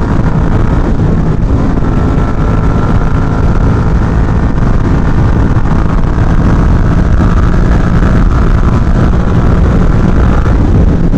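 Yamaha MT-07 parallel-twin motorcycle running steadily at highway speed, about 160 km/h on a wet road, with loud steady wind rush on the microphone.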